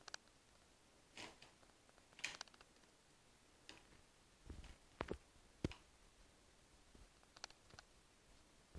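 Faint, scattered crinkles and rustles of a brown paper bag as a kitten paws at it and climbs onto it, with two light thumps about five seconds in.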